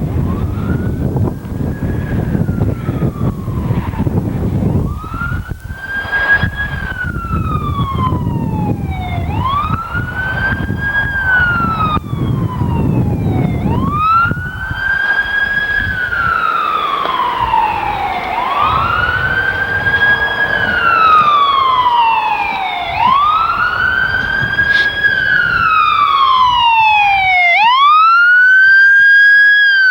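Emergency vehicle siren wailing, a slow rise and fall repeating about every four and a half seconds and growing steadily louder as it comes closer. A low rumbling noise underlies it through the first half and then fades.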